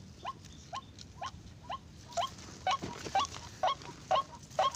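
White-breasted waterhen giving a steady series of short, hooked call notes, about two a second, growing louder about two seconds in.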